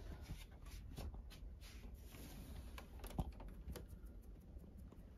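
Light, irregular clicks and taps, with a sharper knock about three seconds in.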